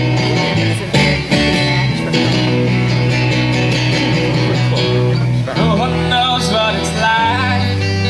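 Live amateur band playing: bass guitar, drum kit and strummed acoustic guitar. A voice starts singing about two-thirds of the way through.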